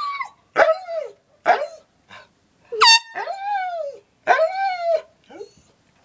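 A dog howling and yowling back in a string of short calls that rise and fall in pitch, with one short, sharp air horn blast about three seconds in that sets it off again.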